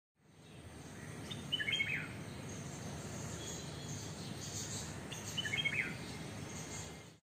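A bird gives the same short call twice, about four seconds apart, over steady outdoor background noise.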